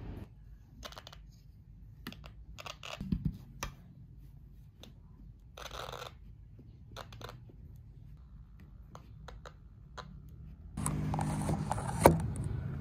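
Scattered small plastic clicks and taps of a GoPro camera and its spare batteries being handled, as a dead camera is tried again. About eleven seconds in, a louder steady background comes in, with one sharp knock near the end.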